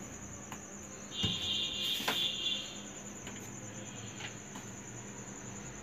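A steady, high-pitched pulsing insect trill runs throughout. A second, lower trill joins for about a second and a half. A few light clinks and knocks of kitchen utensils come about one and two seconds in.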